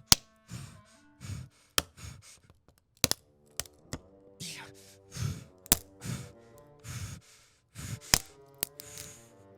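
Homemade Foley effects: a string of sharp clicks and knocks, mixed with short noisy crunches that each have a dull thump under them. Film-score music with held notes comes in about three and a half seconds in.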